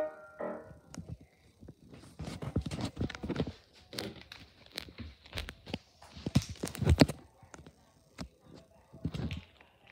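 Irregular knocks, thumps and rustling from a handheld phone being moved around while it records, loudest about seven seconds in. The last notes of a cartoon's end-credit music fade out at the start.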